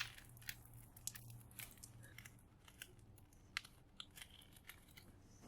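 Tape being picked and peeled off a small transformer's copper coil: faint, scattered crackles and small clicks, with one sharp knock right at the end.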